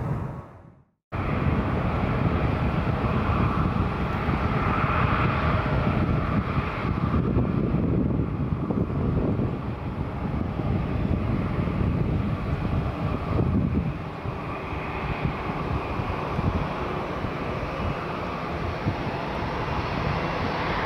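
Aircraft engine noise heard from the ground, a steady rumble with slow swells. It fades out and cuts back in abruptly about a second in.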